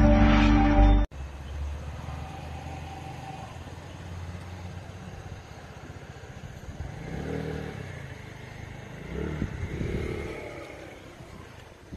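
Loud intro music that cuts off about a second in, followed by a steady low outdoor rumble with a passing motor vehicle engine, rising and falling in pitch twice in the second half.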